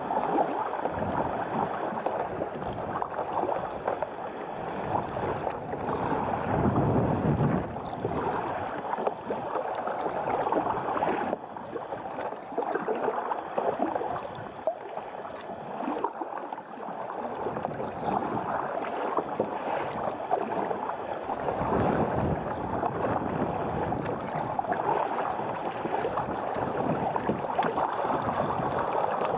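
Sea water splashing and lapping around a kayak, with wind noise on the microphone.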